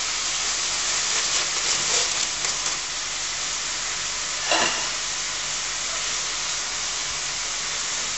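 Pan of balsamic, white wine and cherry-tomato sauce sizzling steadily as it reduces, with a brief crackle early on and a short clatter about halfway through.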